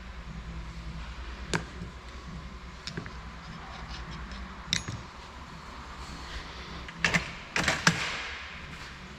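A few sharp clicks and knocks of hand work in a garage, scattered, with the loudest cluster near the end, over a steady low hum.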